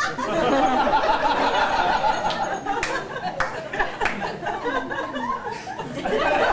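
Audience laughing, many voices overlapping, with a few sharp clicks among it.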